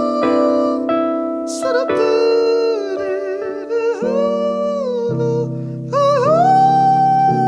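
Female jazz vocalist singing a slow, gliding melody with vibrato, holding a long note near the end, over sustained jazz piano chords.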